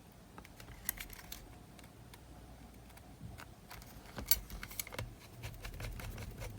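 Scattered small clicks and taps of the plastic casing and tiny screws of a cassette player being handled, as its front cover and hinge screws are fitted back on. The sharpest click comes a little over four seconds in.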